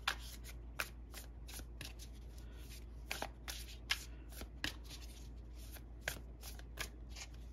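A tarot deck being shuffled overhand: a run of soft card slaps at an uneven pace, with a sharper snap every second or so.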